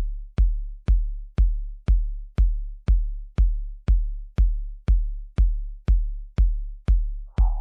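Electronic music stripped to a bare drum-machine kick drum, beating steadily at about two hits a second, each hit deep with a short click on top. A faint synth comes in near the end.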